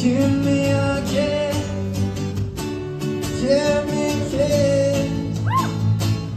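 A male singer performing a pop song live into a microphone over guitar and a steady beat, the music stopping near the end. High screams from the audience start just before it stops.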